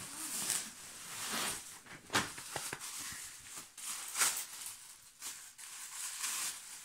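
Plastic wrapping and bubble wrap crinkling and rustling as packed items are handled and unwrapped, in irregular spells with a few sharper crackles.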